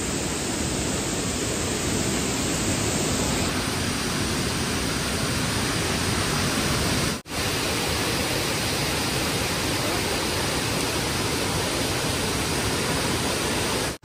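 Steady rushing roar of the Tirathgarh waterfall, a wide many-tiered fall in heavy rainy-season flow. It breaks off for an instant about halfway through, then carries on.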